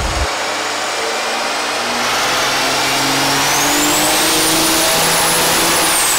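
Compound-turbocharged 2004 Dodge Ram 2500's 5.9 L Cummins inline-six diesel making a pull on a chassis dyno: the engine note climbs from about two seconds in while a high turbo whistle rises steeply, holds, and then falls away near the end. The engine is hurt, running on basically five cylinders.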